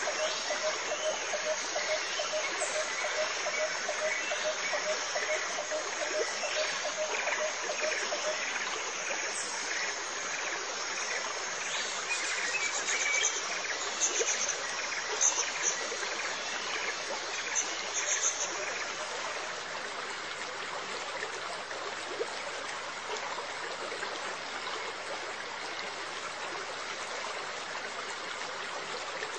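Steady trickle of running water in an aquarium. A faint pulsing tone runs through the first eight seconds, and short high chirps come about halfway through.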